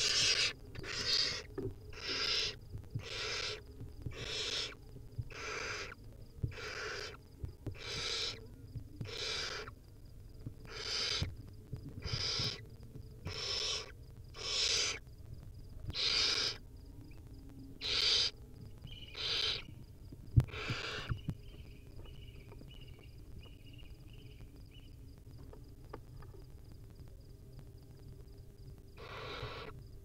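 Barn owl nestling's begging calls: harsh rasping hisses, about one a second, with the adult standing over it holding a mouse. The calls stop about two-thirds of the way through, and one more comes near the end.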